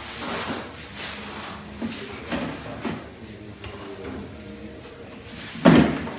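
Plastic bin liner rustling and a small plastic bin being handled, with several light knocks and a louder thump near the end.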